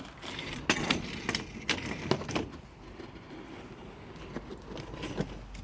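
Several sharp knocks and scrapes in the first two and a half seconds, then quieter rustling and handling noise.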